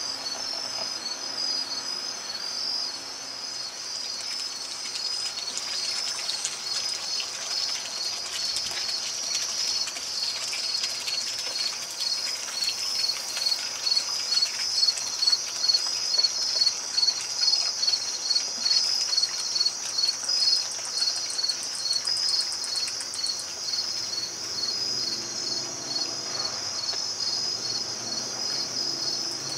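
A chorus of crickets chirping steadily at night, in rapid high pulses. Through the middle a louder, nearer chirping pulses about once a second. A faint trickle of water from a backyard pond fountain sits underneath.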